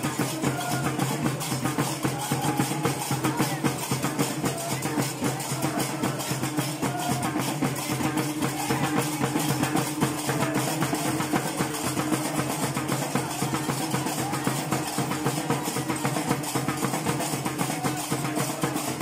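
Gnawa music: many pairs of qraqeb, iron castanets, clacking together in a fast, steady rhythm, with a pitched melody beneath.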